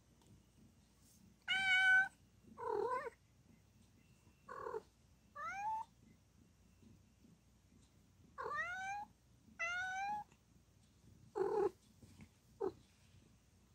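A domestic cat calling in a series of about eight short meows spaced a second or two apart, several rising in pitch and some lower and rougher, the loudest near the start.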